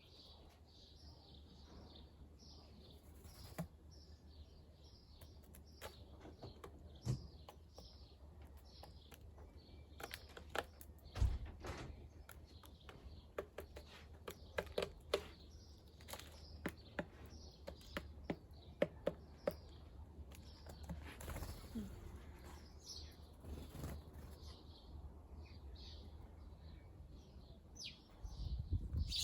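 Small garden birds chirping over and over in short, high notes, with many scattered sharp clicks and taps among them and a steady low rumble underneath.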